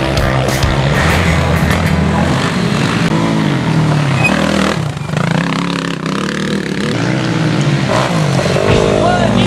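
Sport quad engines revving hard as racing ATVs pass one after another, the pitch rising and falling with the throttle. The sound drops briefly about five seconds in, then builds again as the next quad comes by.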